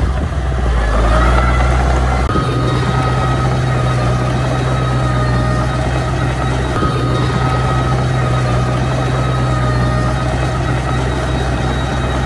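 Small crawler bulldozer's diesel engine running steadily as it pushes a load of dirt, a low hum with a thin high whine on top that grows louder about a second in.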